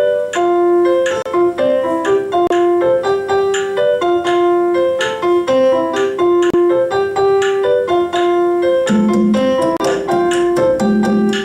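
Piano playing a repeating Latin tumbao pattern, with the sharp clicks of claves striking a 2-3 clave rhythm over it; lower notes join about nine seconds in.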